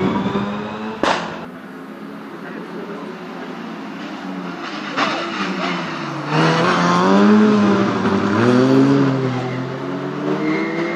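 Rally car engine approaching through a bend, revving up and down through gear changes, loudest as it passes and then easing off near the end. A single sharp pop sounds about a second in.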